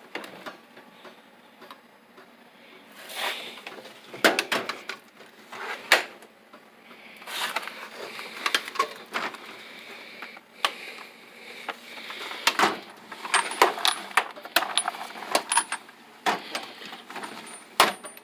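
Metal tool chest drawers being opened and shut, with steel sockets clinking inside: an irregular run of clicks and knocks, with a few short metallic rings in the latter part.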